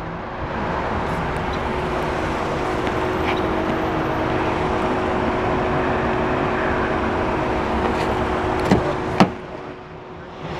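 A steady rushing noise with a constant low mechanical hum under it. Two sharp clicks come near the end, and then the rushing drops away.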